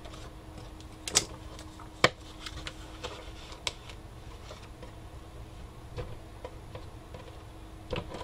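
Hands sliding and tapping sheets of paper into place on a Cinch wire-binding punch, with a few separate sharp clicks and taps, the loudest about one and two seconds in.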